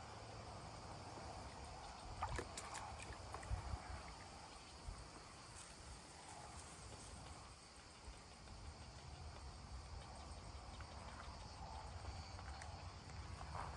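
Water sloshing and lapping softly in a plastic washtub as a Kangal dog stands in it and shifts its paws, with a few sharper splashes and knocks about two to four seconds in.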